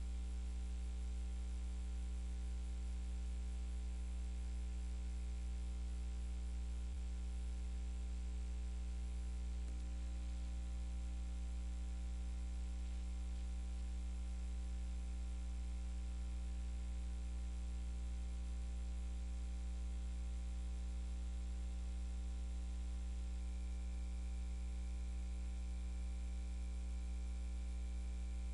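Steady low electrical mains hum with a ladder of higher overtones and faint hiss, and no programme audio on the feed.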